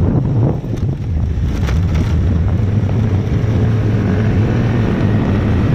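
Wind buffeting the microphone over a steady low rumble of a vehicle moving along a road.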